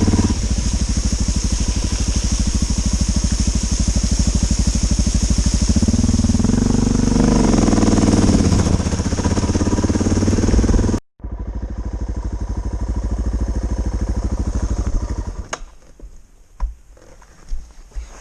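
Suzuki DR650's single-cylinder four-stroke engine running under way, the revs rising and falling about seven seconds in. It breaks off abruptly for a moment near the middle, runs on, then the engine sound ends about three seconds before the close, leaving a few light knocks.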